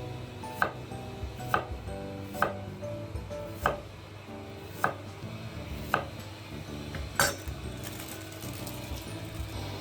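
Kitchen knife striking a cutting board in slow, separate chops, about one a second, over soft background music.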